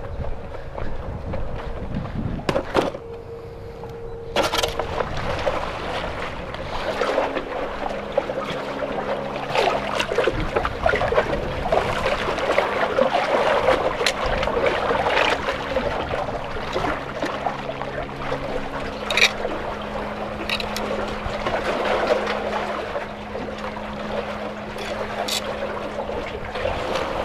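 Seawater sloshing and lapping among concrete tetrapod blocks, with wind on the microphone; the water sound builds about four seconds in. A faint low steady hum runs underneath and drops in pitch about two-thirds of the way through.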